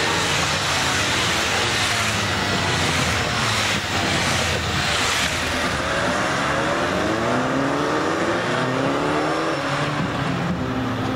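Several police motorcycle engines revving up and down as the bikes ride past close by, their pitch rising and falling over and over.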